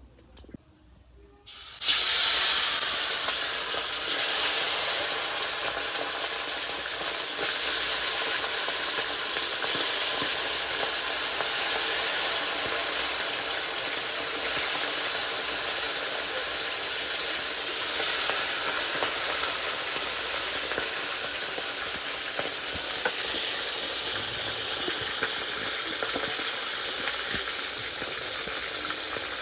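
Food deep-frying in hot oil: a loud, steady sizzle that starts suddenly about two seconds in and eases slightly as it goes on.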